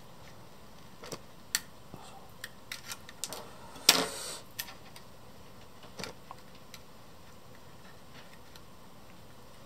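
Small clicks and taps of plastic model tank track links and tweezers being handled, with one louder knock and a brief rustle about four seconds in. The taps stop after about seven seconds.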